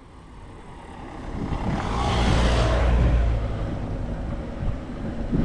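Wind rushing over the rider's camera microphone with mountain bike tyre and trail noise as the bike picks up speed downhill, swelling to a loud buffeting rush about two seconds in, then easing off.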